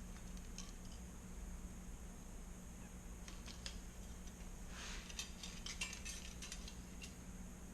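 Faint metallic clinks of transmission clutch plates being handled and sorted, a few light ticks and then a short cluster of clinks about five seconds in, over a steady low hum.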